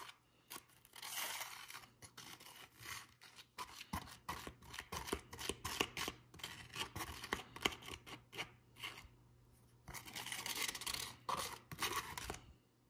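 A plastic spoon scraping thick paste out of a flexible plastic cup: quick, irregular scrapes and clicks of plastic on plastic, pausing briefly about two-thirds of the way through and stopping just before the end.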